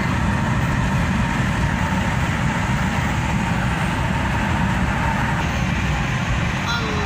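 Steady road and engine noise inside a moving car's cabin, with a deep rumble.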